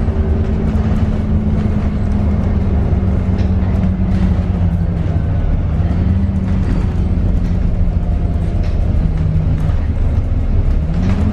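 A bus engine running, heard from inside the passenger cabin as a steady low rumble. Its tone drops partway through and climbs near the end as the bus gathers speed.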